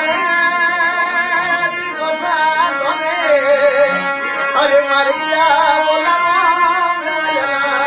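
Rajasthani folk music, a passage between sung verses: a wavering, ornamented melody line over steady held drone notes.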